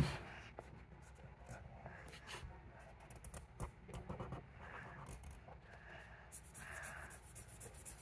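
Felt-tip marker rubbing back and forth on paper in quick, faint strokes, colouring in a circle. A sharp click right at the start is the loudest sound.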